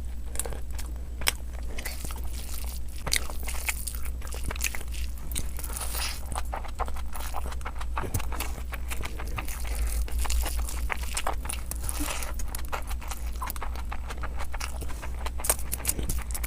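Close-miked eating sounds: a person chewing and biting into food, with irregular wet smacks and mouth clicks, over a steady low hum.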